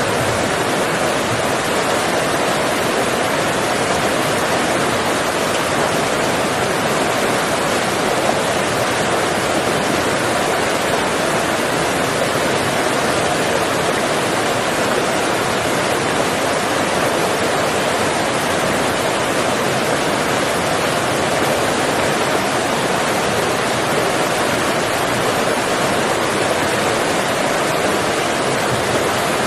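Steady, even rushing noise, like running water or wind, with no breaks or calls in it.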